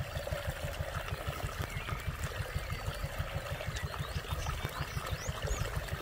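Water trickling and pouring into a flooded armadillo burrow, a steady gurgling flow, with a low fluttering rumble underneath.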